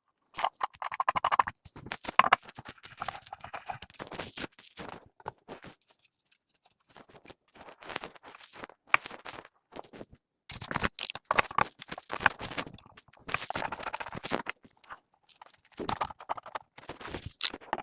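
Parts of a flexible soldering stand being fitted together by hand: its arms with alligator clamps and its base give irregular clicks, knocks and scrapes, in clusters with a short pause in the middle.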